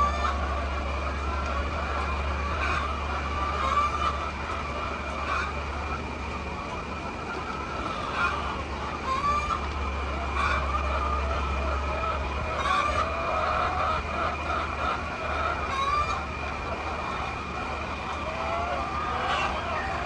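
Chickens clucking and calling in short, repeated calls, over a steady low hum and a constant high-pitched whine.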